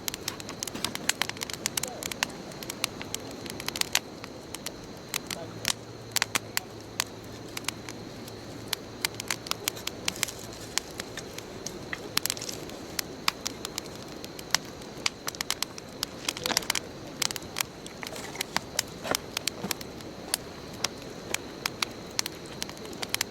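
Bonfire burning with frequent irregular sharp crackles and pops over a steady soft hiss.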